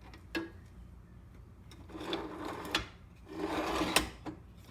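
Handling noise from a small lapidary vise being fitted and tried out: a knock, then two rubbing, sliding stretches each ending in a sharp click, the loudest click about four seconds in.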